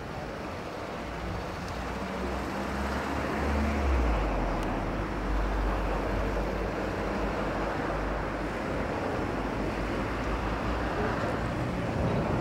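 Wind buffeting the microphone in an uneven low rumble over a steady rushing background, growing louder about two seconds in.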